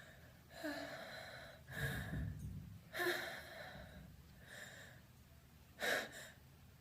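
A person's gasping, half-voiced in-breaths, coming one after another as they build up to a sneeze, then a short, sharp burst of breath near the end.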